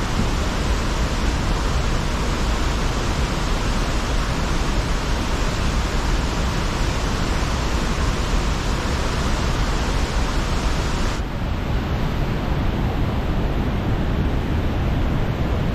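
Loud, steady rush of whitewater from the Coulonge River falls pouring over a spillway into rapids. About eleven seconds in, the highest hiss drops out of the sound.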